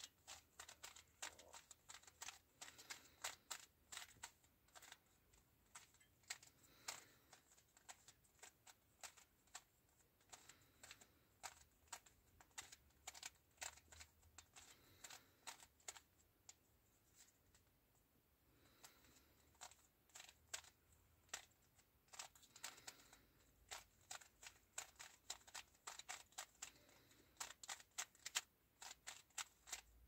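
Stickerless 3x3 speed cube being turned by hand: faint plastic clicks in quick, irregular runs as the layers are twisted, with a brief lull a little past halfway.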